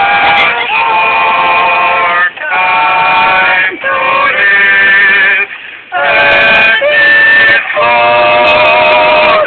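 Several voices singing long held notes with vibrato through megaphones, the phrases breaking off every second or two.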